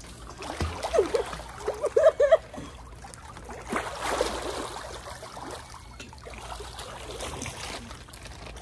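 Splashing and sloshing pool water as swimmers kick and thrash at the surface, heaviest from about four seconds in. Short bursts of a person's voice come about one to two seconds in.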